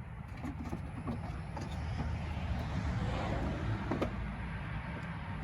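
Steady low rumble that swells a little in the middle, with a few light clicks and taps as a car's plastic tail light assembly is worked back into place.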